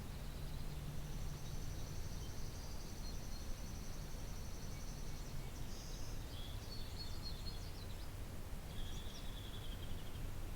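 Songbirds singing: a long, rapid high trill lasting about five seconds, then a few shorter chirping phrases and a lower, briefer trill near the end. A steady low hum runs underneath.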